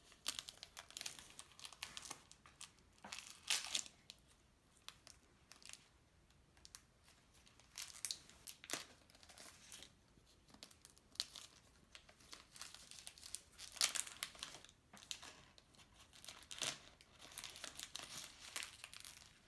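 Plastic toy packaging crinkling and tearing as a small surprise packet is opened by hand, in irregular bursts; the loudest come about three and a half seconds in and about fourteen seconds in.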